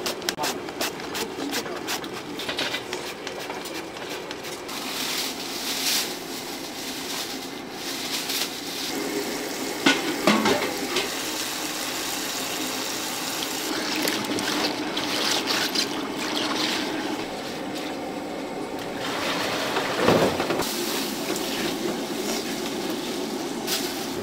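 Kitchen work sounds: water running or being poured, with sharp clicks and knocks of utensils, thickest in the first couple of seconds, and louder knocks about ten and twenty seconds in.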